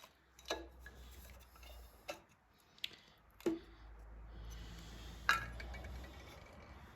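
Metal tools and engine parts clinking and tapping while a small lawnmower engine's valve cover area is worked on: about five sharp clinks spread a second or so apart, over a low steady hum.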